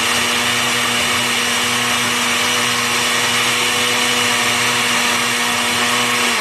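Countertop jug blender running loud and steady on its ice setting, crushing ice in a milk-and-banana shake, its motor pitch holding constant. It is switched off at the very end, the motor tone starting to fall as it spins down.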